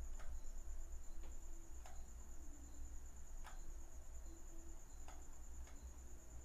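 Quiet room background: a steady high-pitched whine over a low hum, with a few faint, irregularly spaced clicks.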